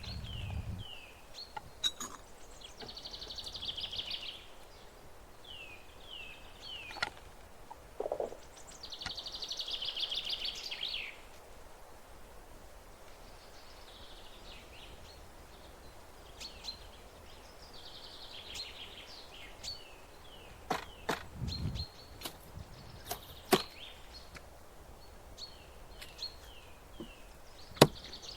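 Birds calling repeatedly: short high chirps that fall in pitch, and several longer, rattling trills of a second or two. Scattered sharp clicks and taps sound in between.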